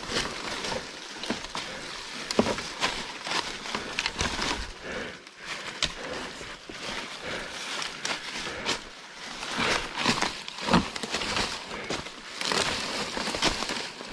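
Mountain bike riding down a dirt singletrack trail: a rough rolling rustle of tyres with frequent irregular clicks and rattles from the bike.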